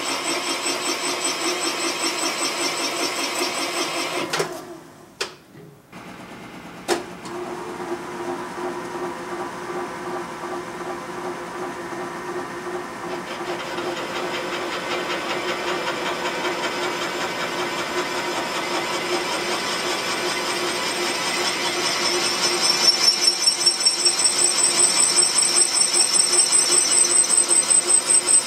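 Valve seat cutting machine (Serdi) spinning a multi-angle cutter into a new valve seat in a Pontiac 455 cylinder head: a steady, rhythmic grinding cut with a steady ringing tone. It drops out briefly about five seconds in, with a sharp click just after, then carries on and gets louder with a high whine near the end.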